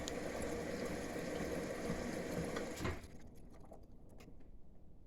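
Washing machine running early in a hot 90-degree cleaning wash, a steady whirring with water noise and a faint hum. It cuts off abruptly about three seconds in, leaving a quiet background with a few faint clicks.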